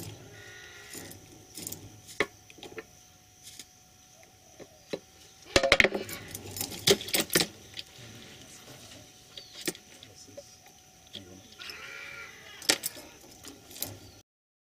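Scattered sharp clicks and knocks from New Caledonian crows moving about and handling stones at a clear acrylic box apparatus. The loudest is a quick run of clacks about five and a half seconds in.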